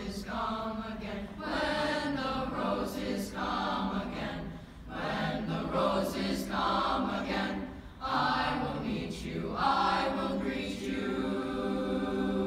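Boys' chorus singing in harmony, held chords with the pitches changing every second or so. The last chord is cut off near the end.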